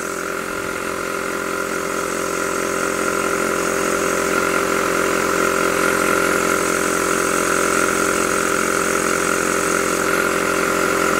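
Small electric air compressor running with a steady hum, growing slightly louder over the first few seconds, along with a hiss of air escaping through a wide-open bleed tap on its air manifold.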